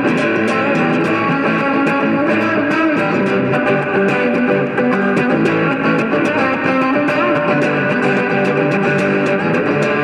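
Electric guitar music playing steadily, with held notes layered over one another.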